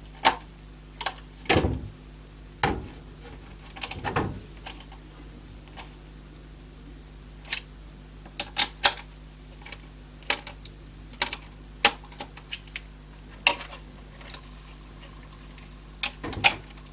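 Irregular clicks and taps of a small hand tool and metal mounting hardware, with a few duller knocks, as the CPU cooler's mounting screws are tightened down one after another.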